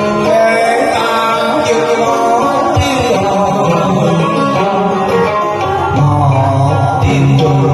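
A man singing a Vietnamese tân cổ duet song through a microphone and speaker over a karaoke backing track with plucked-string accompaniment.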